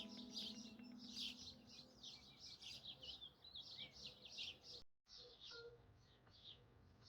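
Birds chirping, many short, high chirps in quick succession, faint, with a brief dropout about five seconds in.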